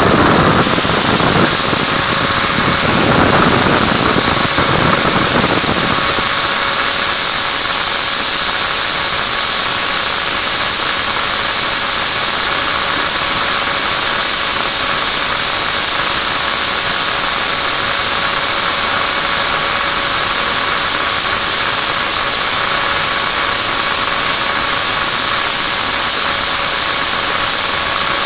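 Modern-brand angle grinder switched on, its high whine climbing to full speed within the first second and then running at a steady high pitch. For the first several seconds a rougher grinding noise joins it as the disc is pressed lightly, little by little, against a metal ring to grind it thinner.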